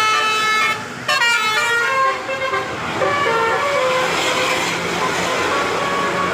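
Bus 'telolet' multi-tone air horn playing a tune of changing notes. It breaks off briefly just before a second in, then sounds again with falling glides and held notes, over a hiss of road noise in the second half.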